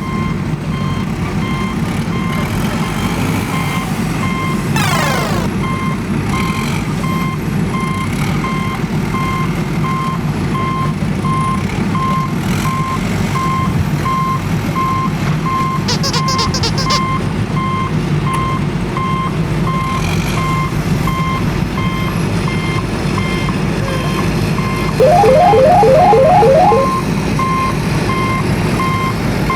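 A truck's reversing alarm beeps steadily and evenly over a low, steady engine rumble. A falling whistle sounds about five seconds in, and a louder, short warbling tone comes near the end.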